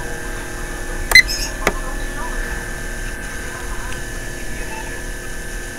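A short electronic beep from the incubator's water-pumping control unit about a second in, as its plus button is held, followed shortly by a faint click, over a steady thin electrical hum.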